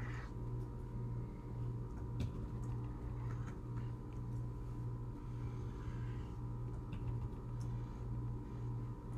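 Felt-tip marker strokes scratching faintly on paper, with a few light clicks. Under them runs a steady low electrical hum that pulses about twice a second.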